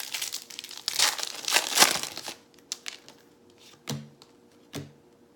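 Foil wrapper of a Topps baseball card pack torn open and crinkled for about two seconds, then a few soft taps as the cards are handled and laid on the table.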